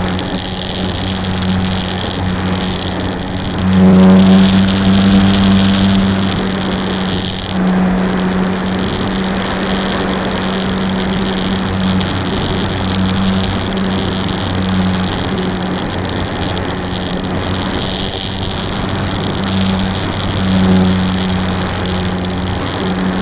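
Electric motor and propeller of a HobbyZone Super Cub RC plane in flight, picked up by an onboard keychain camera: a steady low hum with a hiss of air over it. It grows louder for a couple of seconds about four seconds in, then holds.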